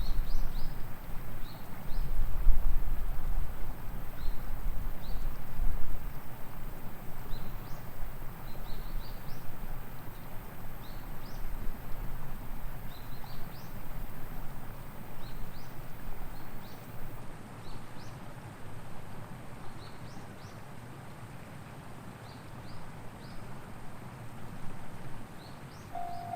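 A low rumble fades away about six seconds in, and scattered faint high chirps run throughout. Near the end, the railway level crossing's warning alarm starts sounding with a steady tone.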